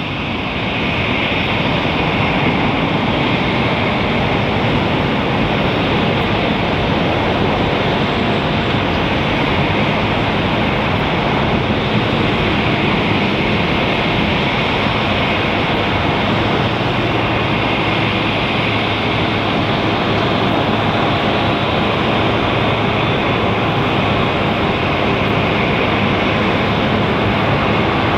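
Steady jet aircraft noise at an airport apron: an even rushing hiss that holds one level, with no rise or fall.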